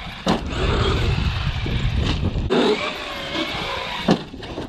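Traxxas Wide X-Maxx electric RC monster truck landing from a jump on gravel with a knock about a quarter second in, then running over the gravel. Two more knocks come about two and four seconds in, the last the loudest, with a faint falling motor whine just before it.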